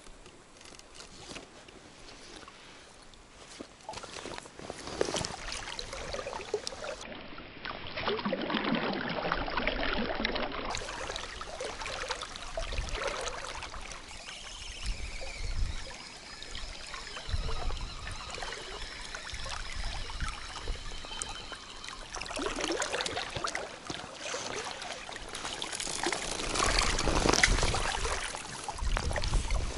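Current of a small mountain river rippling and trickling around a wading angler, quiet at first and louder from about four seconds in, with scattered small clicks.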